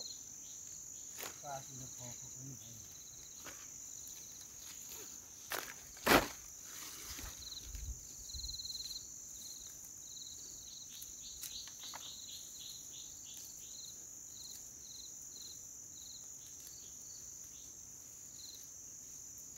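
Insects chirring steadily in a continuous high band, with a second insect chirping in short repeated pulses through the second half. A few sharp clicks break in, the loudest about six seconds in.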